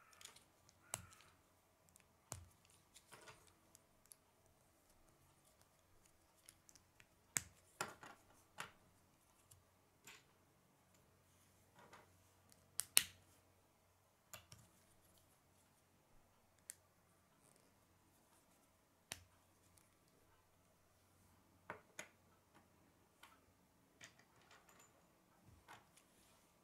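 Scattered sharp plastic clicks and snaps of K'nex rods being pushed into and worked in grey connectors, with pieces tapping on a wooden tabletop. The loudest is a close pair of clicks about halfway through.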